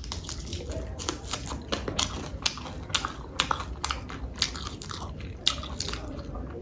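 Close-miked chewing of a chicken leg piece: wet mouth clicks and smacks, several a second in an irregular rhythm.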